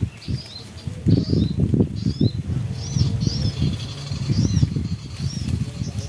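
Repeated short, high bird chirps played from the bird-call lure recording, over loud rustling and thudding footsteps through dry grass.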